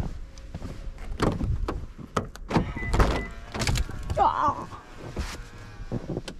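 Car door being opened: a series of sharp clicks and knocks from the handle and latch, and a thunk as the door swings open.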